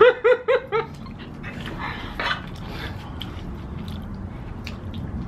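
Dog yipping four times in quick succession, then faint clicks.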